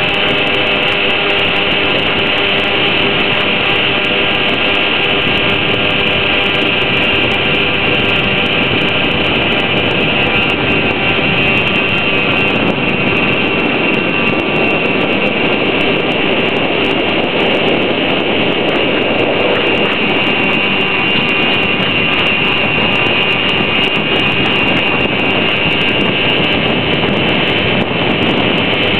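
Traxxas Villain radio-controlled boat's electric motor running steadily at speed, a high whine over the rush of water along the hull, heard from a camera on board the boat.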